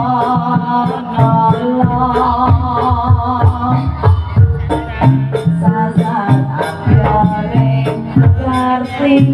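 Jaranan (kuda lumping) gamelan accompaniment playing continuously: drums and struck percussion in a steady repeating rhythm under a wavering melody line.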